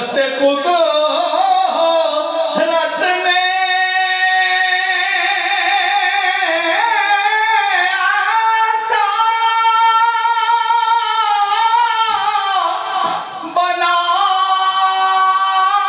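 An elderly man's unaccompanied voice singing a naat, Urdu devotional poetry in praise of the Prophet, in long, high, held notes with a wavering pitch. The notes break briefly for a breath about 13 seconds in.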